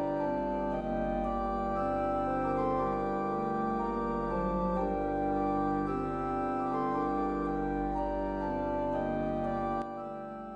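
Background music led by sustained organ-like keyboard chords, with a low bass underneath; the bass drops out near the end and the music begins to fade.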